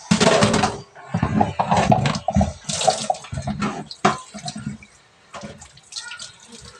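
Water splashing into a stainless steel kitchen sink as a plastic water dipper is filled and rinsed; loud for the first four seconds or so, then dying down to scattered splashes and drips.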